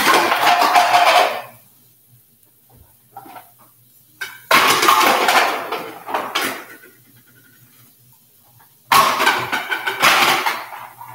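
Kitchen clatter and scraping in three bursts, each lasting a second and a half to two seconds, from cookware and utensils.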